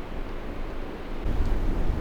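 Blizzard wind buffeting the microphone as a low, rumbling gust noise that grows heavier a little over a second in.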